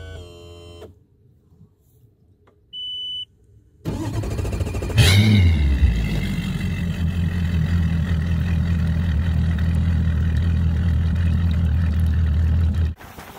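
Mercury Pro XS 250 hp four-stroke V8 outboard, brand new and being run in, running steadily under way with a rush of wind and spray. It comes in about four seconds in, surges about a second later, and cuts off suddenly near the end. A short high beep comes before it.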